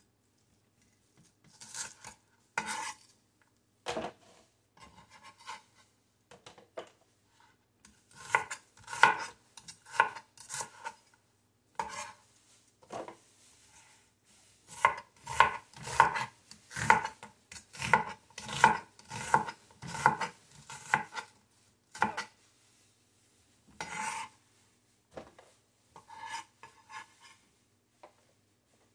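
Knife chopping onion on a plastic cutting board: irregular knocks of the blade striking the board, with a quicker run of about two chops a second in the middle.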